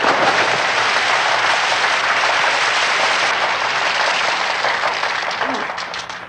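A large crowd applauding, dying down near the end.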